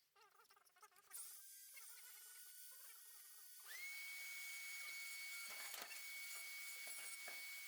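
Faint high-speed rotary tool with a diamond burr spinning up about four seconds in and holding a steady high whine, with a few scratchy clicks as the burr cuts a crater pattern into knife handle scales.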